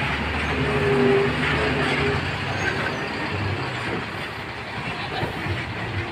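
Diesel engine of a Tata tipper truck running steadily at low speed as the truck crawls over a rutted, muddy road, with a brief higher whine in the first second or so.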